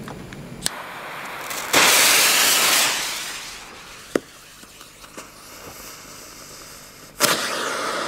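Firecracker fuses fizzing: a loud hiss that starts suddenly about two seconds in and dies away over the next second or so, then another that starts near the end. A couple of sharp clicks fall in between.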